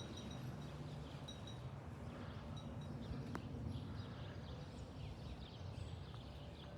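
Small birds chirping now and then over a steady low rumble, with one sharp click about three and a half seconds in.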